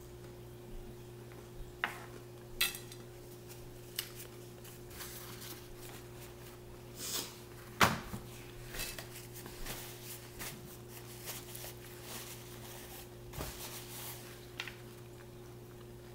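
Scattered clicks and knocks of dishes and tableware being handled at a table, the loudest a sharp knock about eight seconds in, over a steady low hum.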